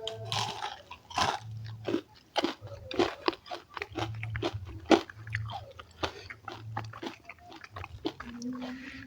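A person chewing a mouthful of food close to the microphone, with a rapid run of wet smacking and crunching clicks.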